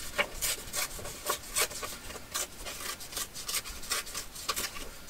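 Paper scraps being handled and rubbed against a paper page, giving a run of irregular, crisp rustles and scrapes.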